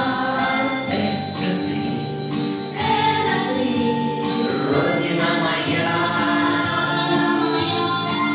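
Music: a choir singing held notes over instrumental accompaniment.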